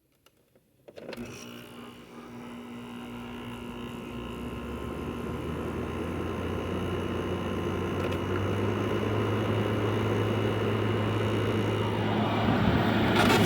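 5000 BTU Midea window air conditioner starting up: out of near silence about a second in, its running noise sets in with a steady hum and grows louder over several seconds. A deeper hum joins about eight seconds in.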